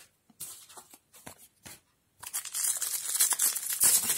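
A few soft taps of cards being handled, then from about two seconds in a trading-card booster pack's crinkly wrapper crackling and tearing as it is ripped open.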